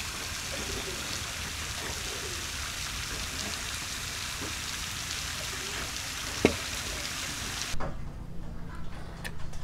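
A steady, even hiss with one sharp knock about six and a half seconds in; the hiss cuts off suddenly near the end, leaving only faint ticks.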